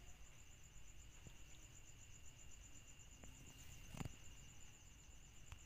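Near silence with a faint, rapidly pulsing, high-pitched insect trill, and one soft knock about four seconds in.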